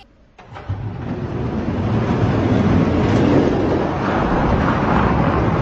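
Two die-cast Hot Wheels monster trucks rolling fast down a long orange plastic track: a steady rolling rattle and rumble of their wheels on the plastic. It starts about half a second in.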